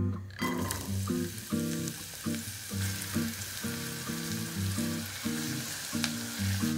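Chopped onion hitting hot olive oil in a saucepan and sizzling as it starts to sauté, stirred with a spatula. The sizzle starts about half a second in. Background music plays underneath.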